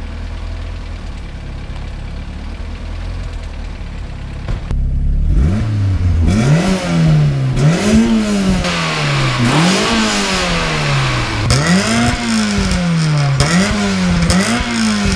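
Turbocharged VW 16-valve engine in a Polo G40 idling steadily, then free-revved about seven times from about five seconds in: each blip climbs quickly in pitch and falls back more slowly, with hiss at the top of the revs.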